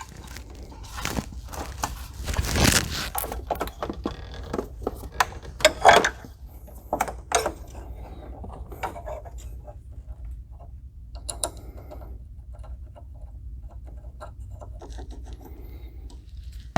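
Hands working a rubber hose through a car's engine bay: irregular scraping and rubbing of the hose against engine parts, with scattered clicks and light knocks, the loudest about two and a half seconds in and again around six seconds.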